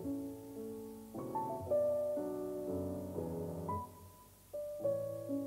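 Piano music: a melody over chords, each note struck and dying away. It thins to a brief lull about four seconds in, then a new chord comes in.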